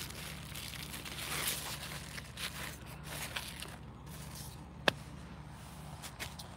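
Crinkly rustling of large cucumber leaves being brushed and pushed aside by hand, with one sharp click about five seconds in.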